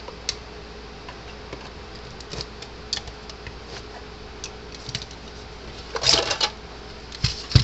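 Scattered clicks and taps of a screwdriver and hands on the plastic housing of a Gallagher M400 electric fence energizer as it is pried apart, with a louder flurry of clicks and snaps about six seconds in.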